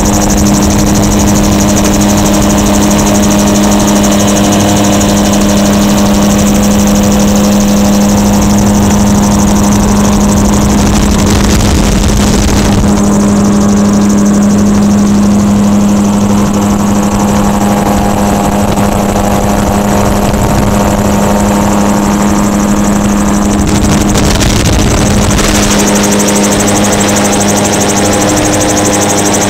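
Gyrocopter engine and propeller running steadily in flight, holding an even pitch, with wind rushing over the open cockpit.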